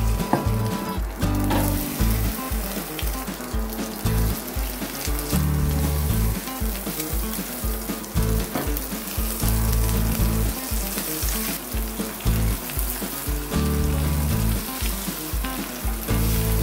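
Egg-battered shrimp frying in oil in a nonstick pan, a steady sizzle as more battered pieces are laid in.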